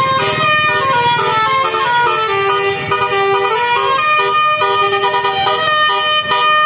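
Basuri telolet multi-tone horn on a car playing a melody: loud, steady horn notes stepping up and down in pitch, several notes a second.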